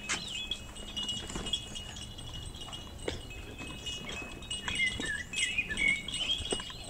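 Birds chirping, with curling high calls about five seconds in over steady high ringing tones.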